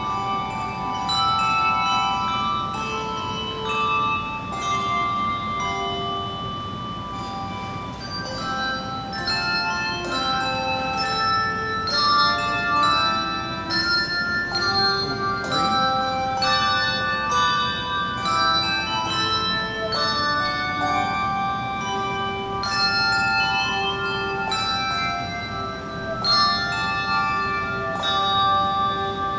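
Handbell choir playing a tune: many bells struck in turn and together, each note ringing on under the next.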